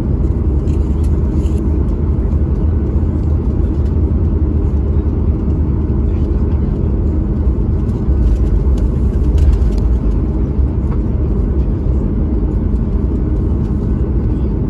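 Steady low rumble of cabin noise inside a Boeing 737 MAX 9 airliner, with a few light clicks and rattles, most of them between about six and ten seconds in.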